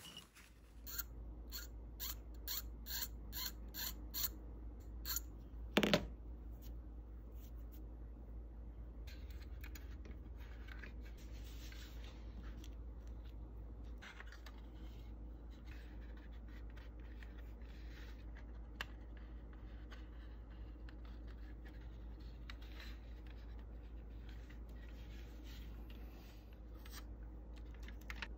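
Hands handling a taped-up plastic 1/24 scale model car body and small tools at a workbench: a quick run of small clicks or snips for a few seconds, one sharper click about six seconds in, then faint rubbing and tapping over a steady low hum.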